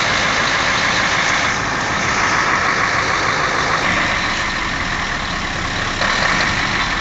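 Heavy truck engine running steadily: a Mercedes-Benz Actros working on rough, unpaved ground.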